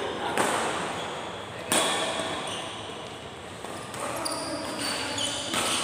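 Badminton rackets striking a shuttlecock during a doubles rally: a few sharp hits, the loudest about two seconds in, each ringing on in the large hall.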